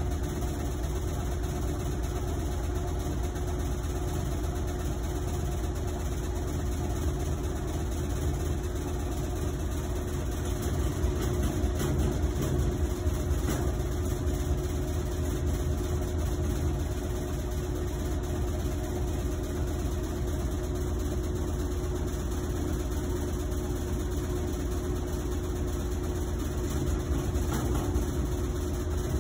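Whirlpool WTW5010LW top-loading washing machine running a cycle: a steady low rumble with a hum, a little louder about a third of the way in and again near the end. The owner calls it terribly loud, like a freight train, and blames the machine's light, thin build; Whirlpool's technician says that is just how it is.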